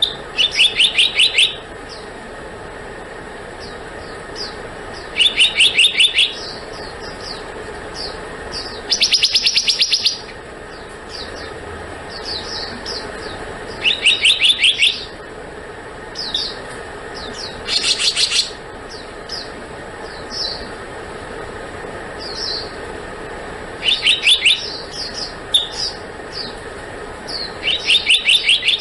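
Black-naped monarch calling: a rapid, even run of ringing notes lasting about a second, repeated about every four seconds. Between the runs come short single notes. Two of the runs sit higher in pitch than the others.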